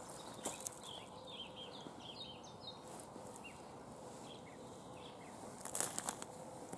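Small birds singing quick, thin chirping notes, mostly in the first half. Near the end a few sharp crunches as a boot treads on the freezing lake edge.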